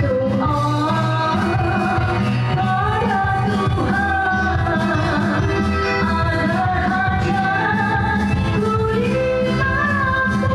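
A woman singing a melody into a microphone with a live band behind her, electric guitars included, playing steadily throughout.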